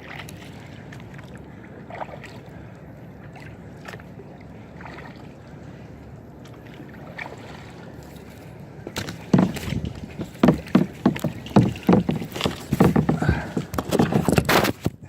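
Water lapping around a small boat, then from about nine seconds in a rapid run of loud knocks and thumps against the boat.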